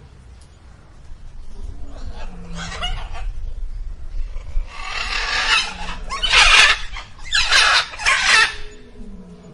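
Indian peafowl calling: a run of loud, harsh cries that grow louder, the strongest three in quick succession in the second half.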